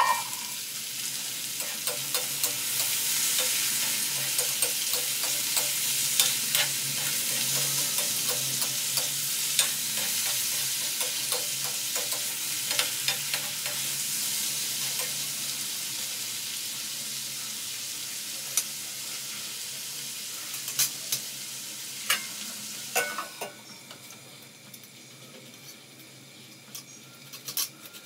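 Potato pieces sizzling in oil in a kadhai, stirred with a metal spatula that scrapes and clicks against the pan. Near the end, with a couple of clanks, a lid goes on and the sizzle drops to a quieter, muffled hiss.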